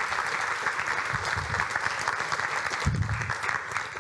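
Audience applauding steadily, with a short low thump about three seconds in.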